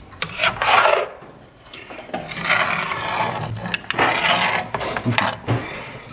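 Stirring spoon scraping across the bottom of a cast-iron Dutch oven through thick tomato sauce, in three long rasping strokes with a few light knocks after them.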